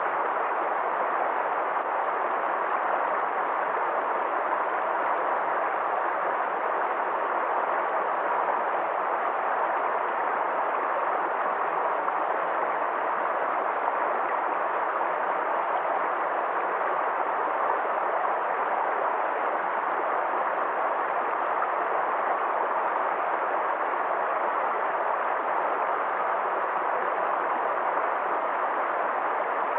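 Forest stream flowing: a steady, even rush of water with no breaks.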